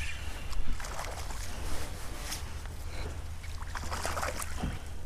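Water splashing and sloshing as a hooked flounder thrashes at the surface beside a kayak, in several short splashes.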